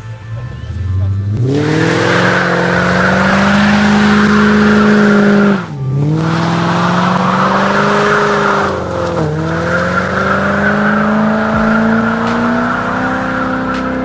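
Ford Crown Victoria's V8 held at high revs in a burnout, its rear tyres spinning and squealing on the pavement. The revs climb about a second in, dip briefly twice (just before halfway and about two-thirds through), then climb again each time.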